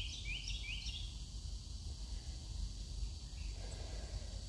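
A quick run of about five high chirps in the first second, over a steady faint high insect drone and a low rumble of wind on the microphone.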